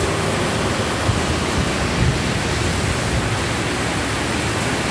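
Heavy rain pouring steadily, an even hiss, with the low rumble of a 205-series KRL Commuterline electric train starting to move off beneath it.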